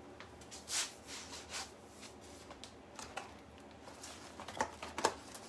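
Brief rubs, scrapes and light knocks of things being handled in a kitchen, the sharpest about a second in and a cluster of sharper ones near the end.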